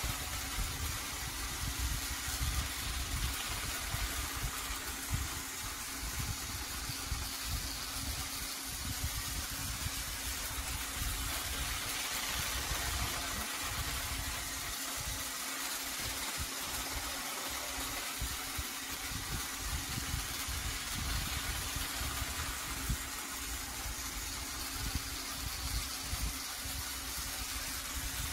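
Battery-powered TrackMaster toy train's small electric motor running as it travels along plastic track: a steady hum with uneven low rumbling beneath it.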